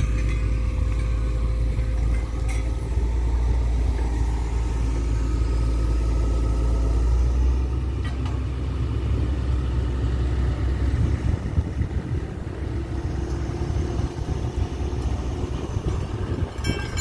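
A steady low rumble, then a hydraulic excavator's diesel engine running while it holds a lifting frame loaded with concrete railway sleepers; near the end come sharp metallic clinks as the frame and sleepers are set down.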